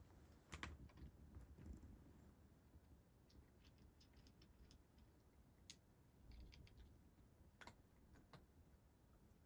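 Cat crunching dry kibble from a dish: faint, scattered crunches and clicks.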